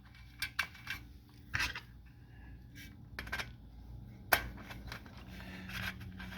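Scattered small clicks, taps and scrapes of hands handling a Kydex skid plate shield and its screws as they are fitted loosely, with one sharper knock a little past four seconds.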